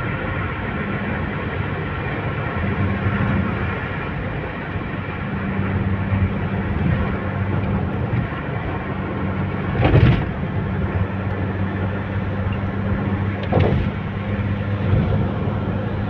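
A car cruising at motorway speed, heard from inside the cabin: steady road and tyre noise with a low engine hum. Two short thumps come in the second half, about three and a half seconds apart.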